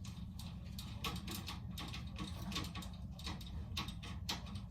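Irregular small clicks and ticks as a knob is screwed by hand onto a magnetic latch for an A/C return-air grille.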